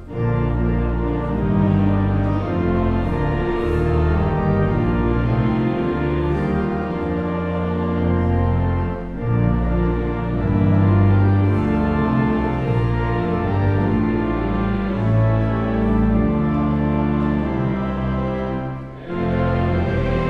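Church pipe organ playing a hymn: held chords over a deep pedal bass, with a short break between phrases near the end.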